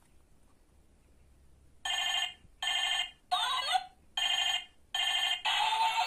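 Hello Kitty toy mobile phone sounding as its keypad is pressed: after a quiet start, a run of short electronic ring tones about half a second each, one of them warbling up and down. Near the end it starts playing a continuous electronic tune.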